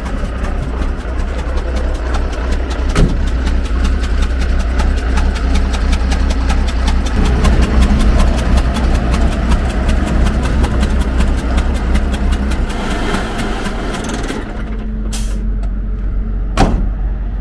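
Magirus Deutz truck's air-cooled Deutz diesel engine running after a restart, with a rapid, even ticking over a steady low rumble: a noise it did not make before, and the engine is soon found pushing smoke out of its oil breather, a sign of an engine fault. About three quarters in the ticking drops away, and two sharp knocks follow.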